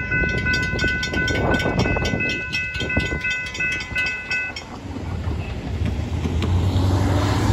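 Railroad crossing bell ringing with rapid, even strikes as the crossing gates rise, stopping about four and a half seconds in. Cars then drive across the tracks, their engine and tyre noise getting louder near the end.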